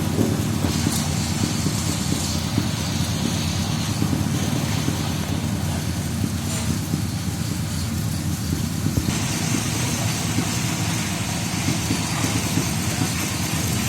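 A vehicle engine idling steadily, with a hiss higher up that gets louder about nine seconds in.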